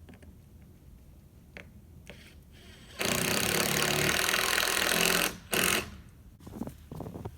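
A power tool runs in one loud burst of about two seconds, starting about three seconds in, followed shortly by a brief second burst; faint knocks and rustles come before and after.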